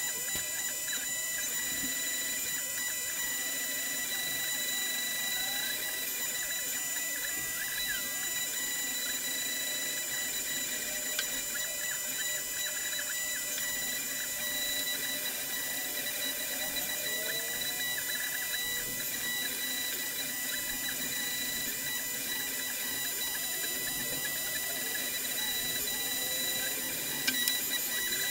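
CNC router carving plywood: the spindle's steady high-pitched whine, with lower tones that glide up and down as the axis motors drive the bit through the cut. A sharp tick comes near the end.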